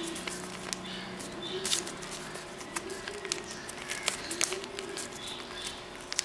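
Sheet of printed paper rustling and crackling in the hands as it is folded and creased, with scattered sharp crinkles. A faint low, wavering sound runs in the background.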